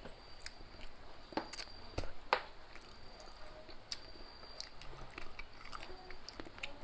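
Close-up mouth sounds of eating braised crucian carp with rice: soft chewing and lip smacks, with a few sharp clicks and taps about one and a half to two and a half seconds in.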